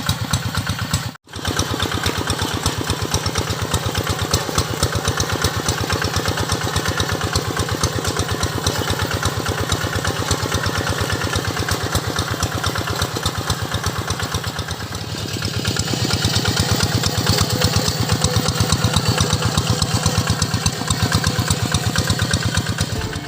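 Hand tractor engine running with a steady, rapid, even beat. It cuts out for an instant about a second in, and the engine is louder from about two-thirds of the way through.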